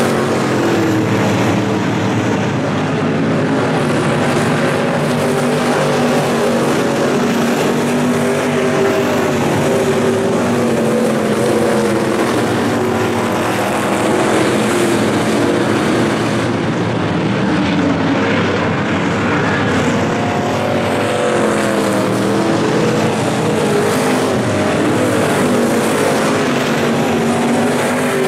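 Several Super Street dirt-track race cars' V8 engines running hard together around the oval, loud and continuous, their pitch rising and falling as the cars come through the corners and down the straights.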